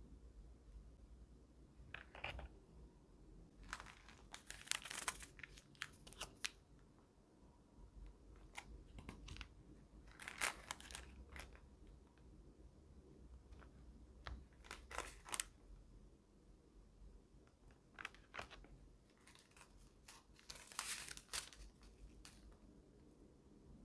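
Quiet, intermittent crinkling and tearing of small plastic candy-kit packets as they are handled and cut open, in short bursts every few seconds.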